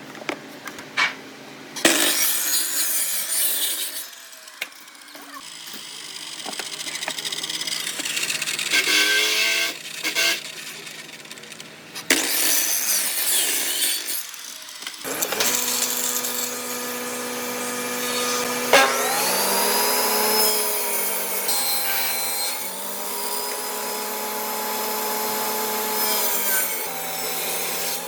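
Power tools cutting solid wood. About halfway through, an electric motor starts running steadily, its pitch dropping and recovering a few times as it takes load in the wood.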